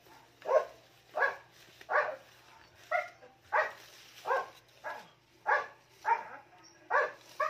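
A dog barking steadily, about ten short barks, one every three-quarters of a second or so.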